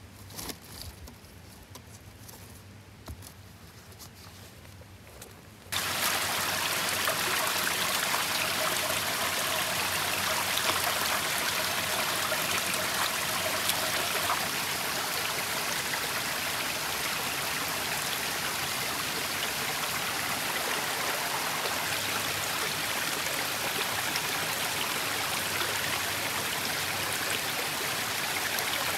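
Small rocky forest stream and trickling cascade running, a steady rush of water that starts abruptly about six seconds in, after a quieter stretch with a few faint ticks.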